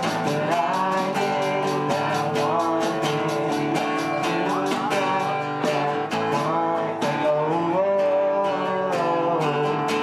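Live acoustic guitar strumming with a man singing into a microphone, backed by an electronic drum kit keeping a steady beat.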